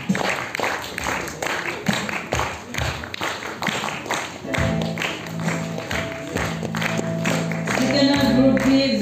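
Audience clapping for the first half. About halfway through, music with long held notes starts, and near the end a voice comes in over it.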